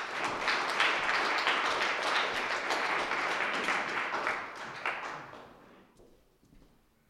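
Audience applauding, a dense patter of many hands clapping that tails off about five seconds in and dies away by six.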